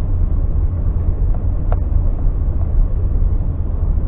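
Suzuki Alto 800's three-cylinder engine running as the car drives slowly, a steady low rumble of engine and road noise heard from inside the cabin.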